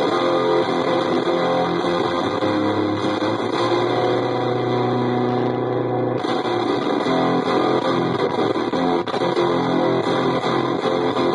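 Electric guitar played through the Dropout Fuzz breadboard prototype in its boost mode, into a Marshall JCM-style amp: thick fuzzed chords ringing out, with a new chord struck about six seconds in.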